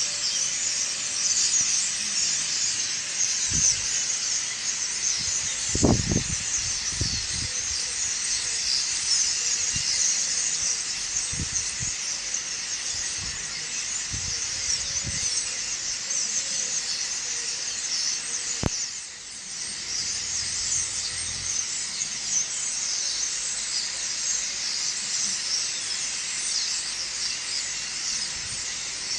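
A large flock of birds chirping in a dense, unbroken high-pitched chorus at dawn, with a few low knocks about six seconds in.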